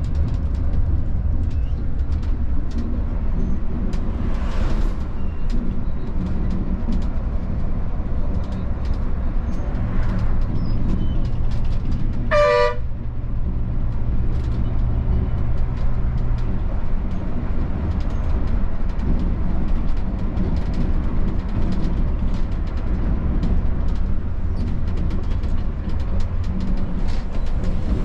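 Volvo B11R coach's six-cylinder diesel engine running steadily under way, with a constant low road rumble. A short horn toot sounds about halfway through.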